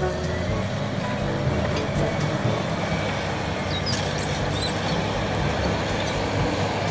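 Large crawler bulldozer's diesel engine running hard, with a steady heavy noise, as it pushes a load of dirt with its blade.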